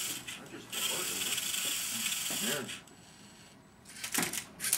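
LEGO robot motors of a Rubik's Cube solver whirring for about two seconds as the robot handles the cube to scan its faces, then a few sharp plastic clacks near the end.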